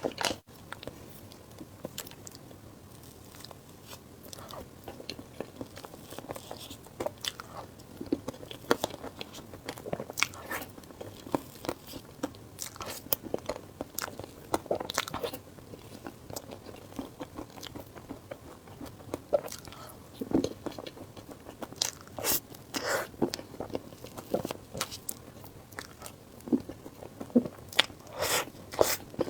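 Close-up eating sounds: biting and chewing with irregular crunches and wet mouth clicks.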